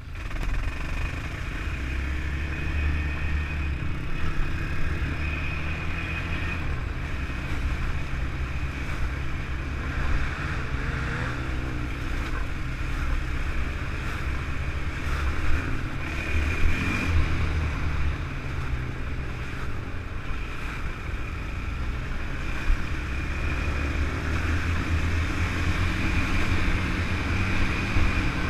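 2003 Honda TRX450R sport quad's single-cylinder four-stroke engine running steadily while riding, its pitch rising and falling a little with the throttle.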